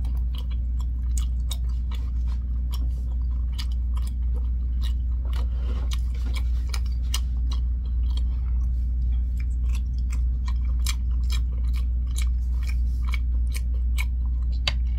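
Close-up chewing of a mouthful of tteokbokki, spicy Korean rice cakes: a long run of small, irregular mouth clicks. A steady low hum runs underneath.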